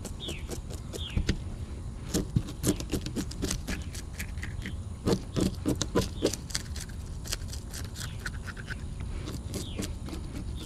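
Knife blade scraping the scales off a bluegill, a rapid run of short rasping strokes, with bursts of harder strokes about two and five seconds in.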